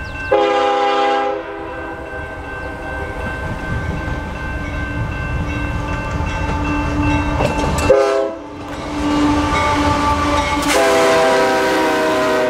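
Canadian Pacific GE diesel-electric locomotives hauling a long double-stack container train past: a continuous deep engine rumble and rolling wheel noise. The multi-note air horn sounds three times: a blast of about a second just after the start, a short one around eight seconds in, and a longer one through the last two seconds.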